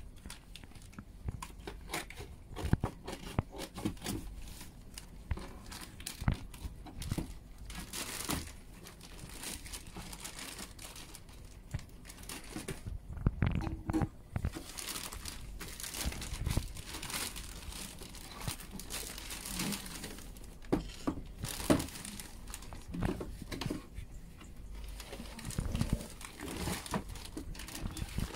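Packaging crinkling and tearing as it is handled, with irregular rustles and crackles, as a parcel is opened.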